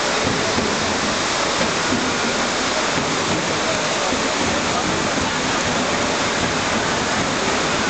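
Heavy rain from a rainstorm, falling in a steady, even hiss.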